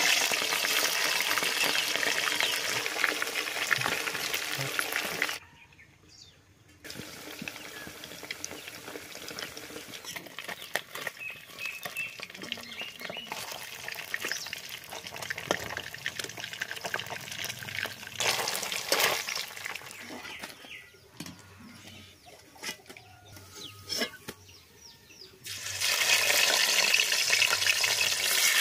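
Pieces of mrigal carp sizzling as they fry in hot oil in a wok. The sizzle is loud at first, drops out briefly, comes back quieter with a few knocks and clicks, and turns loud again near the end as fresh pieces go into the oil.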